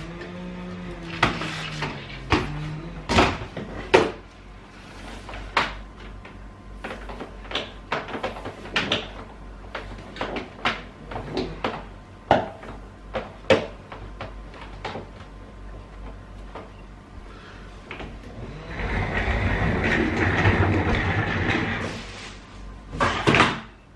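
Red wet-and-dry shop vacuum being put away: its motor hums and falls in pitch over the first two seconds as it winds down. Then comes a string of sharp plastic clicks and knocks as the hose, wand and cord are handled, and near the end a few seconds of rumbling as it is wheeled across the floorboards.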